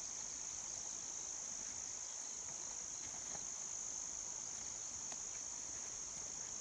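Steady, high-pitched, unbroken drone of insects chirring.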